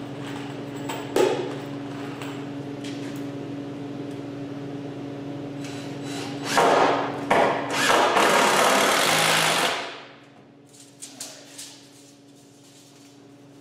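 A machine running with a steady hum, joined about six and a half seconds in by a loud hissing rush. Both stop abruptly near ten seconds, leaving a few light knocks.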